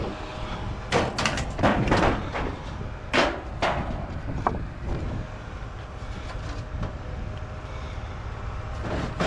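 Pieces of scrap metal clanking and knocking as they are unloaded, a quick run of impacts in the first four or five seconds, over a steady low rumble.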